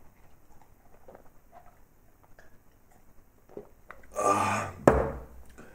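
A man's short, loud, throaty gust of breath with a low voiced tone, burp-like, about four seconds in, ended by a single sharp knock. Before it only faint small handling noises.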